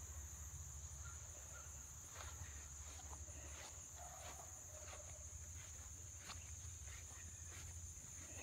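Faint outdoor field ambience: a steady, high insect chorus, crickets or similar, over a low rumble. Scattered soft clicks of footsteps in grass come and go.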